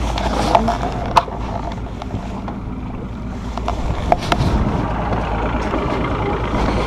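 Small fishing boat's outboard motor running steadily at trolling speed, a low continuous rumble with wind and water noise over it and a few sharp knocks.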